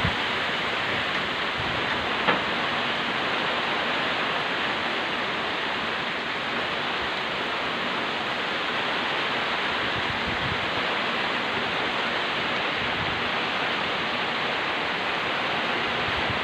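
Heavy rain falling in a steady, even downpour, with one short tick about two seconds in.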